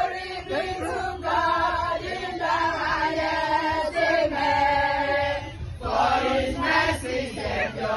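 A group of voices singing a praise chorus together in long held notes, phrase after phrase with short breaths between.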